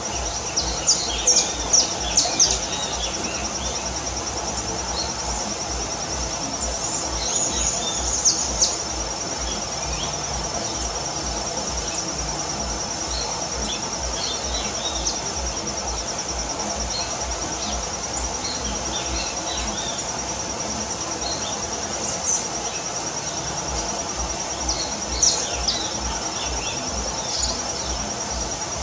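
Steady high insect trilling, with short chirps and calls from small birds at a fruit feeder. The calls bunch up in the first few seconds, again around eight seconds in, and near the end. A low hum runs underneath.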